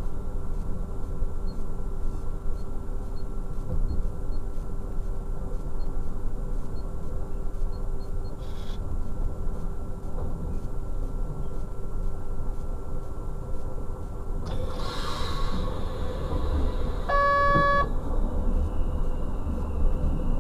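Steady low rumble of a DB Class 628 diesel railcar heard from the cab as it rolls slowly into a station. About fifteen seconds in there is a short burst of hiss. Soon after comes a brief pitched tone, like a short horn toot or warning tone, and then a faint high whine.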